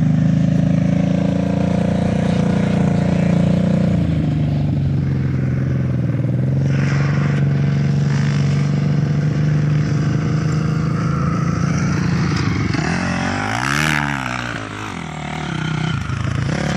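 A nearby off-road engine runs steadily at idle, its note stepping down a little about four seconds in. Near the end a dirt bike's engine revs up and down as the bike rides close past.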